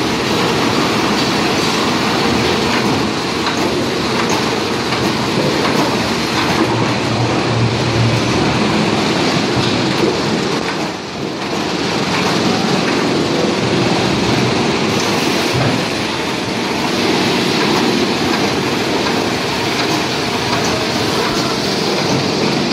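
Rotary veneer peeling lathes and other plywood mill machinery running: a loud, steady mechanical din that dips briefly about eleven seconds in.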